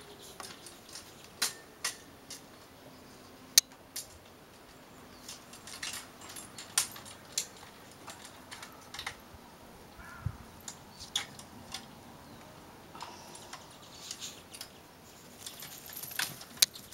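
Irregular sharp clicks and ticks at uneven intervals, a few of them louder snaps, with a dull low thud about ten seconds in.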